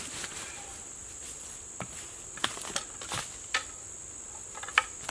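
Insects drone steadily at a high pitch. A handful of sharp knocks and clicks come from a cant hook worked against a big ash log, the loudest near the end.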